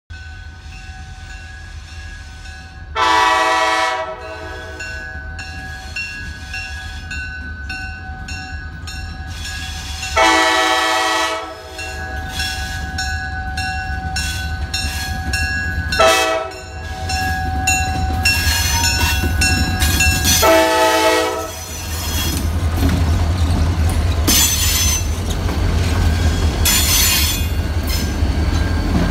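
Wheeling & Lake Erie freight train led by EMD GP35 and SD40-2 diesel locomotives. The lead locomotive's air horn blows the grade-crossing signal, long, long, short, long, over the steady rumble of the diesel engines, which grows louder as the locomotives come by. Near the end the wheels give two high screeches on the rail.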